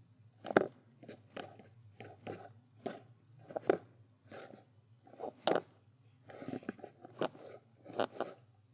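Big cup with a straw being moved and softly bumped: a string of short plastic knocks and scuffs at irregular intervals, about one or two a second.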